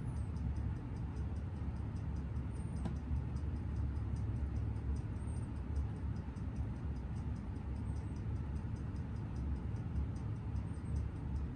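Seiko 7009 automatic movement ticking at 21,600 beats an hour, a faint, even train of about six high clicks a second: the escapement running steadily, with a beat error of only 0.2 ms. A steady low hum lies under the ticking and is louder than it.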